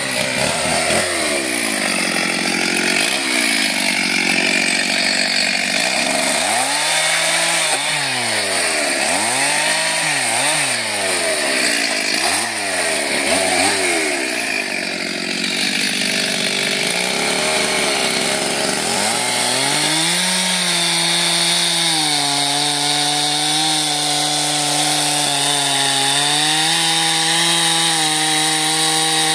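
Stihl two-stroke petrol chainsaw cutting seasoned oak logs: the engine speed repeatedly drops and climbs back up for the first twenty seconds or so, then holds a steady high pitch through the cut near the end.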